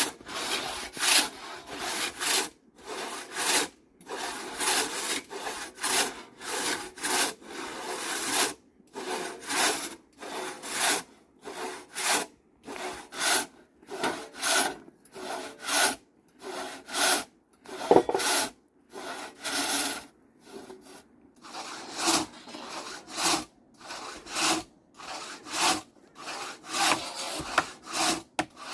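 Traditional Nepalese hand saw cutting through timber, rasping in steady back-and-forth strokes with a few short pauses. One stroke about two-thirds of the way through is sharper and louder.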